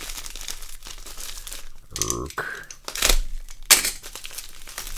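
Packaging crinkling and tearing as a small package is unwrapped by hand, with a few sharper, louder crackles past the middle.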